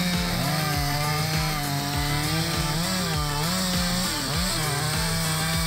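Stihl 046 AV two-stroke chainsaw, about 76.5 cc, running at full throttle while cutting into a large tree trunk. Its steady pitch sags and recovers a couple of times in the middle as the chain loads up in the wood.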